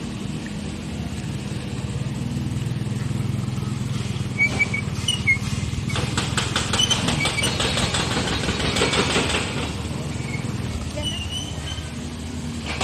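Small motorcycle engines running. One rides up and passes close by with a rapid rattling beat, loudest about nine seconds in, then fades.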